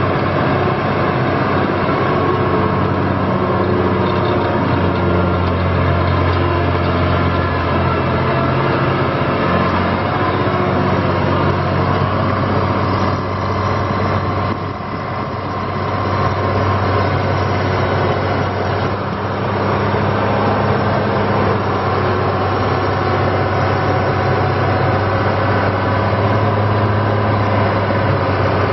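Cummins diesel engine of an asphalt paver running steadily, its level dipping briefly about halfway through before coming back up.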